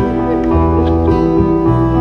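Live band playing an instrumental passage: a bass line stepping from note to note about every half second under held keyboard chords and acoustic guitar.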